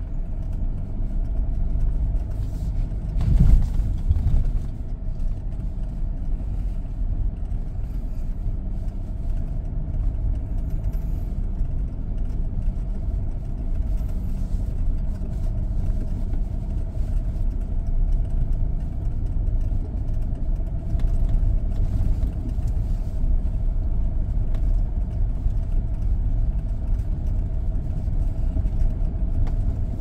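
SsangYong Rexton Sports Khan pickup running slowly: a steady low rumble with a faint steady whine above it, and one louder bump about three and a half seconds in.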